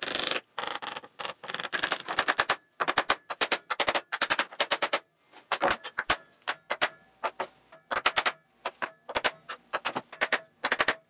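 Rapid light hammer taps on wood as glued wooden inlay letters are tapped down into their mortises. The taps come in quick runs of several a second, broken by short pauses.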